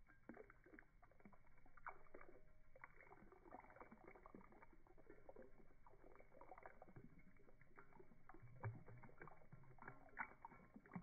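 Faint, irregular trickle of tea pouring from a teapot spout into a ceramic mug.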